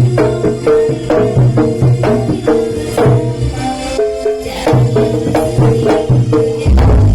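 Live jaranan (kuda lumping) ensemble music: a stepping pitched melody over regular drum and percussion strikes and a bass line. Near the end a heavier bass beat comes in.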